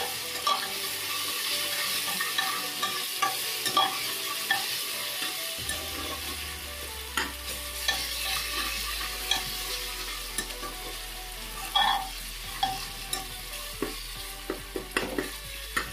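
Sliced onions and ginger-garlic paste sizzling in oil in a pressure cooker, with a spoon scraping and clicking against the pot as they are stirred. The paste is being fried until its raw smell is gone.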